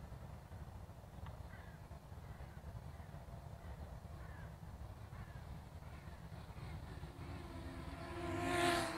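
DJI Mini SE quadcopter's propeller buzz, swelling as the drone comes close and loudest just before the end, over a steady low wind rumble; a few faint bird calls sound earlier.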